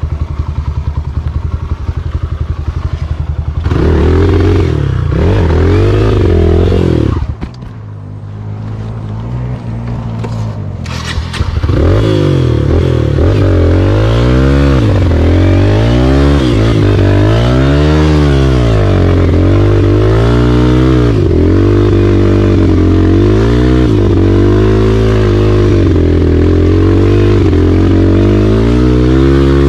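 Kawasaki KLX140G dirt bike's single-cylinder four-stroke engine running at low revs, revved up at about four seconds and dropping off at about seven seconds. From about twelve seconds in it is revved up and down again and again, roughly every one and a half to two seconds, as the bike is worked through slimy mud.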